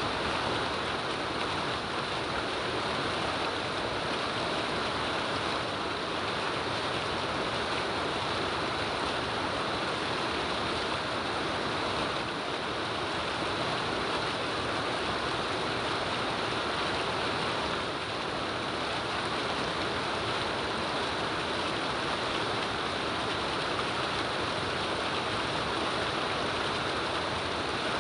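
Steady rain falling, an even hiss of water with no breaks or distinct drops standing out.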